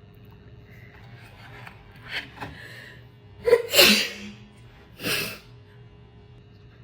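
A person sneezing as a nasal swab tickles the nose: a sharp catch of breath running into a loud sneeze about three and a half seconds in, then a second, shorter sneeze about a second later.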